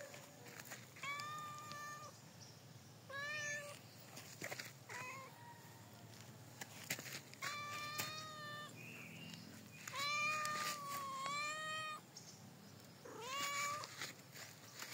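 Domestic cat meowing repeatedly: about seven separate meows, some short and a few drawn out for about a second, with two close together in the second half.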